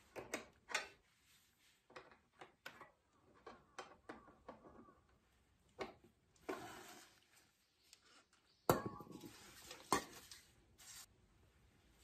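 Scattered small clicks, knocks and rustles of hands removing the air cleaner cover and foam element from a small petrol engine, with two sharper knocks about 9 and 10 seconds in. This is the first step of stripping the engine down to get at the carburetor in search of a fuel leak.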